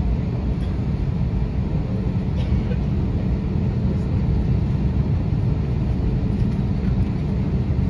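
Airbus A321neo cabin noise while taxiing: a steady low rumble from the engines at idle and the wheels rolling on the taxiway.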